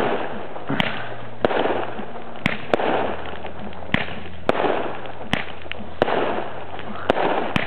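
Consumer firework cakes firing in a quickmatched finale: about ten sharp bangs of aerial shots bursting, roughly every half second to a second, with steady hissing and crackling between them.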